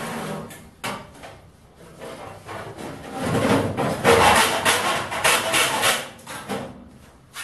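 Sheet-steel filing cabinet being handled and worked at by hand: a shove and a few knocks, then about three seconds of loud scraping and rubbing on the metal, with a knock or two near the end.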